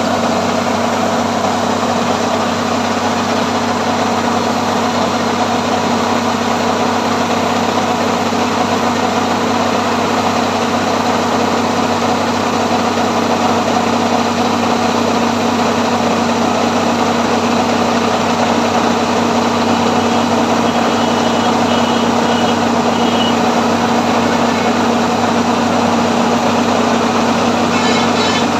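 Combine harvester running with a loud, steady engine drone that holds even throughout.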